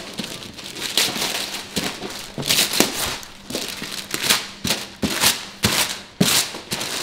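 Gift wrapping paper being torn off a boxed present: a string of quick, irregular rips and crinkles.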